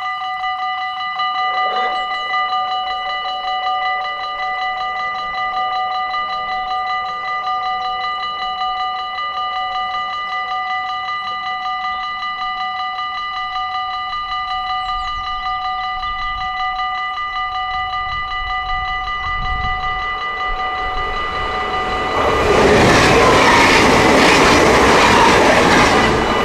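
Dutch level crossing's warning bell ringing in a rapid, even, continuous pulse while the red lights flash and the half-barriers come down. A much louder rushing noise swells in for the last few seconds over the ringing.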